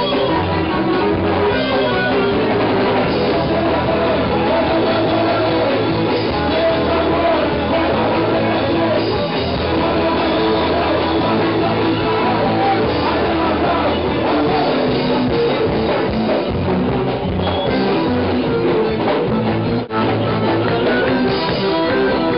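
Live band playing loud, fast psychobilly-style rock: electric guitar and drum kit, with a voice singing. A momentary dropout breaks the sound near the end.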